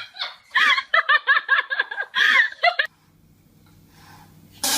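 A person laughing in quick, rapid bursts, cut off abruptly about three seconds in. After that there is a faint steady hum, then a short loud sound near the end.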